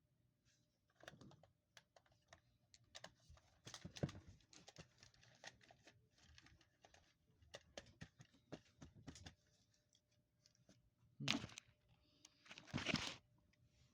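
Scattered light clicks, taps and rustles, irregular and soft, with two louder scuffing noises near the end.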